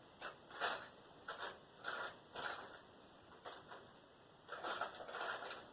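Faint scraping and rustling of small parts handled by hand while sorting through electrical crimp connectors: a string of short scrapes, then a longer rustle near the end.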